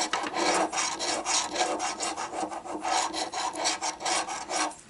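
Edge of a large coin rasping quickly back and forth over a scratch-off lottery ticket, scraping off the coating over the winning numbers in rapid, steady strokes.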